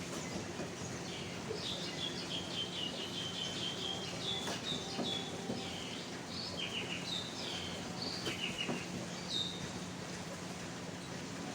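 Birds calling in series of short, quick, high chirps, several bouts over about eight seconds, over a steady hiss of falling rain and a faint low hum.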